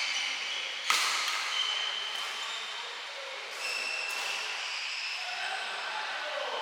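Badminton play with rain drumming on the hall roof as a steady hiss: one sharp racket hit on the shuttle about a second in, and shoes squeaking on the court.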